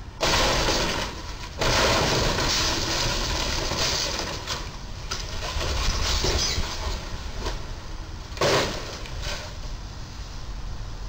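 Two rooftop air-conditioning units on a camper trailer smashing into a low bridge's steel crash beam and being torn off: a loud crunching crash, a second one a second and a half later, then a few seconds of scraping and clattering as the wreckage falls onto the road. Another sharp bang comes about eight and a half seconds in.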